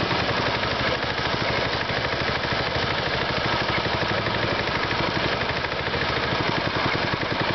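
Small go-kart engine running steadily, a rapid even putter with no revving up or down.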